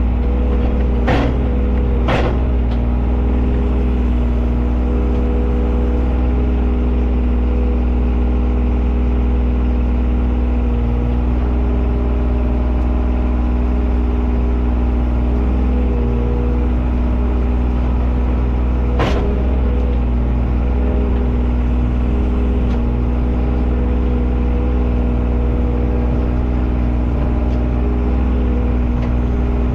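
Excavator's diesel engine running steadily while digging, with a few sharp knocks: twice in the first couple of seconds and once more later.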